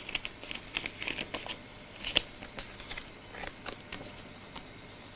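An LP record jacket in a glossy plastic sleeve being handled and turned over: irregular crinkling and light rustling clicks that die away about four and a half seconds in.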